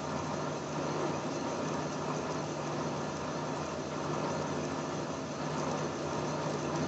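Metal lathe running steadily with its chuck spinning, giving a constant mechanical hum with an even whirr over it.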